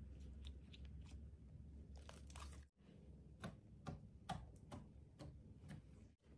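Faint sticky clicks and crackles of clear slime coloured with brown makeup as it is kneaded. After a brief break, a run of sharper little pops, about two a second, as fingertips poke into the flattened slime.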